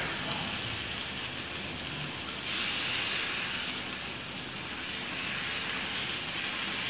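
Besan (gram flour) chilla batter sizzling on a hot, oiled iron tawa as a ladle spreads it; a steady hiss.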